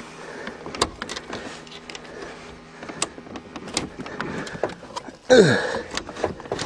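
Old Pontiac Firebird's starter motor being tried on a weak battery: scattered clicks, then about five seconds in a brief whir that winds down in a quickly falling whine as the battery goes dead.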